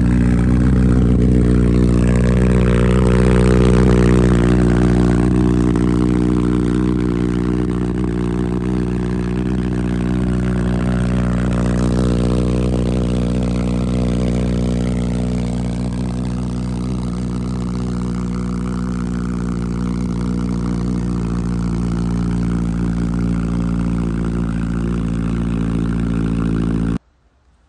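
Honda CB1000R's inline-four engine idling steadily through a CS Racing full aftermarket exhaust. The sound cuts off abruptly near the end.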